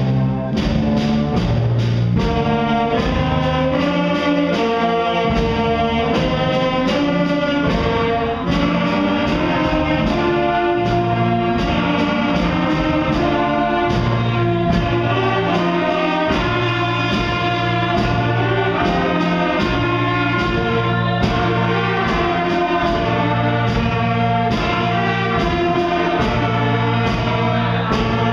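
School concert band playing a piece with flutes, saxophones and brass together, a held melody moving over a steady beat.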